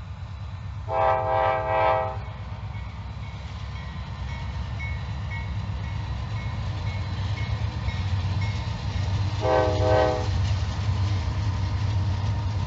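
Norfolk Southern diesel locomotive air horn sounding twice, about a second each and roughly eight seconds apart, as a chord of several notes. Under it the low rumble of the lead diesel locomotives, growing steadily louder as they draw near.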